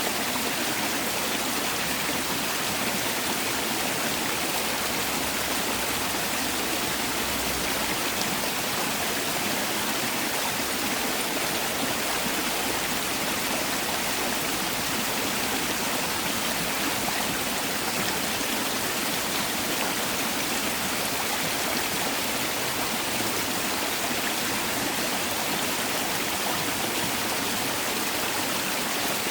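Mountain valley stream rushing steadily over rocks, a continuous even splashing of flowing water.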